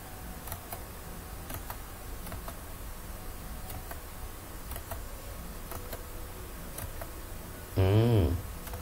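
Sparse light clicks of a computer mouse and keyboard in use, about one a second, over a low steady hum.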